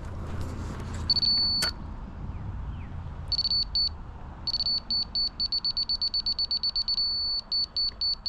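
High-pitched electronic beeping of a laser-level receiver on a grade rod, as the rod is moved through grade. The beeps speed up into a solid tone, then slow again near the end. A low engine rumble runs underneath in the first couple of seconds.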